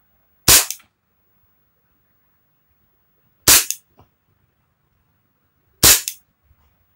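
Xuelang M92F airsoft BB pistol firing three single shots a few seconds apart, each a sharp loud crack followed a fraction of a second later by a fainter tap.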